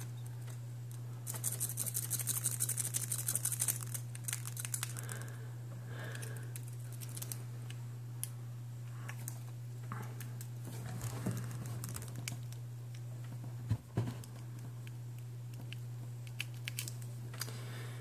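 Raking a pin-tumbler lock: a metal pick scrubbed rapidly in and out over the pins, a fast run of fine metallic clicks for a few seconds, then scattered clicks and scrapes with a sharper knock past the middle. A steady low hum sits underneath.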